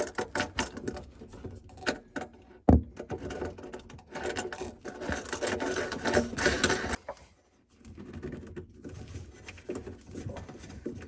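Metal faucet mounting hardware clicking, scraping and rattling as a ring and nut are spun by hand up the faucet's threaded metal shank under the sink, with a sharp knock about three seconds in and the busiest rattling in the middle.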